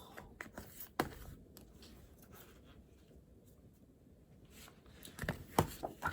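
Scattered light taps and clicks of pen writing and handling things at a desk, with one sharper click about a second in and a cluster of taps near the end.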